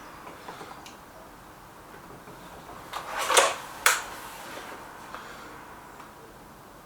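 Stoeger RX20 S2 Suppressor break-barrel air rifle firing one muffled shot a little before halfway. About half a second later a sharp click follows as the pellet strikes the metal reset target.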